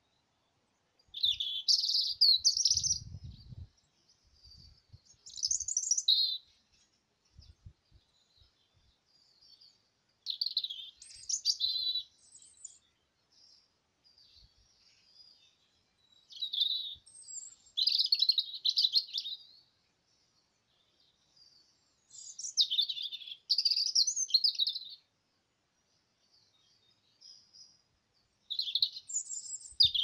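European robin singing: about six short warbling phrases of thin, high, quickly changing notes, each one to three seconds long, with pauses of a few seconds between them.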